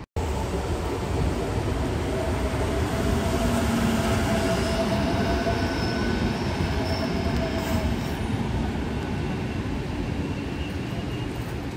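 A green-and-white VR electric passenger train running past close by: a steady rumble of wheels on rail, with faint high-pitched whining tones over it from about three to eight seconds in.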